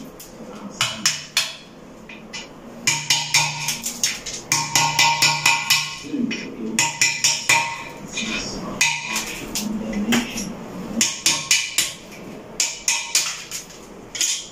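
A hammer tapping a hand tool to chip old cement from the outlet of a porcelain toilet bowl. The taps come in quick runs of several a second with short pauses between, worked gently so the bowl does not crack. Background music plays underneath.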